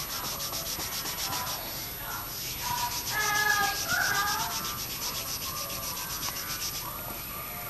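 Felt-tip marker scribbling rapidly back and forth on a white drawing board as a patch is coloured in: quick, even rubbing strokes, loudest around the middle.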